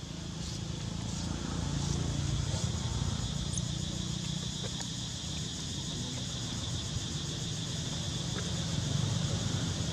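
Outdoor ambience: a steady high insect chorus over a low rumble that swells slightly a couple of seconds in and again near the end.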